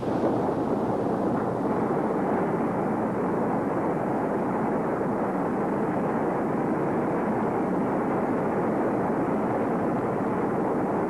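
Steady rushing noise of a TV sound effect for a comet passing overhead. It starts suddenly and holds level.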